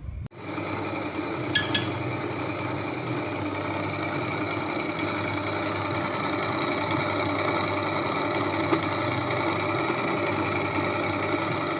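Electric ice cream maker's motor and gearbox running steadily, with terrible gearbox noises that are the sign of a faulty gearbox.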